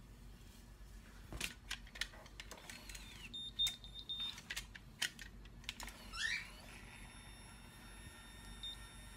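Conair Curl Secret automatic curler in use: scattered clicks of the tool being handled as hair is clamped into it, with a high beep lasting about a second around three and a half seconds in, which signals that the curl is done, and a shorter beep near the end. A short rising sound comes about six seconds in.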